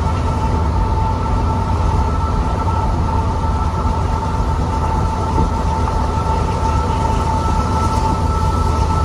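Steady low rumble and road noise of driving at speed alongside a moving train, with two constant high-pitched tones held throughout.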